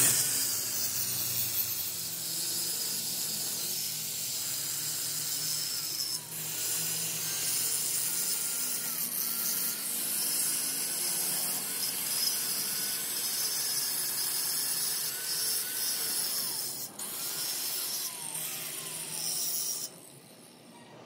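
Electric angle grinder with an abrasive disc grinding the broken end of a steel truck front axle beam: a steady, hissing grind with the motor's pitch sagging and recovering under pressure. It lifts off briefly a few times and stops near the end.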